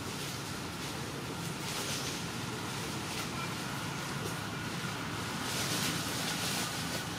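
Steady outdoor background noise: a low hum under a high hiss that swells about two seconds in and again around six seconds.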